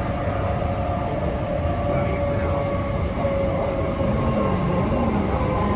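Inside a moving passenger train carriage: a steady low rumble of the train running on the rails, with a faint steady whine above it.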